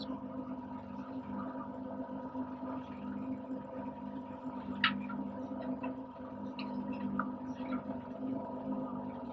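Steady, even hum of the fishing boat's motor, with a few light clicks and knocks on board, one sharper about five seconds in.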